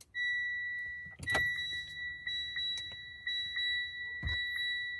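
Steady high-pitched electronic tone from the Mitsubishi Xpander's dashboard as the ignition is switched on. The tone breaks off for a moment with a sharp click about a second in, and a few light clicks and a dull thump sound through it.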